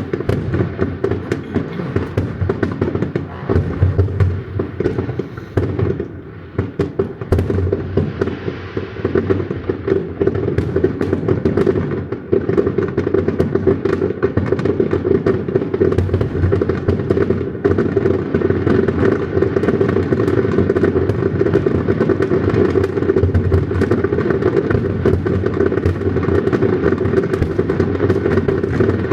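Fireworks going off in a dense barrage: rapid, overlapping booms and bangs one after another. There is a brief thinning about six seconds in, then an almost unbroken run of bursts.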